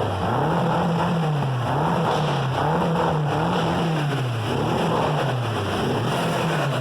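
2012 BMW M5's 4.4-litre twin-turbo S63 V8 revved up and falling back about once a second, seven times over, after repair of its cylinder 5 misfire.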